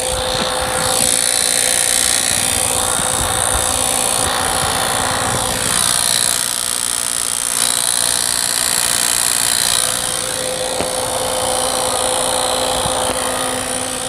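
Maruti Swift petrol engine running with the AC on, its AC compressor making a continuous, steady 'trr' whirring noise. The mechanic takes this for a mechanical fault inside the compressor, which also leaves the AC barely cooling.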